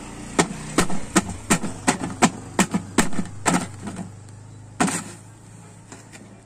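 A pointed tool jabbing at a paper picture on a board: about ten sharp taps roughly a third of a second apart, then one louder strike a little before five seconds in.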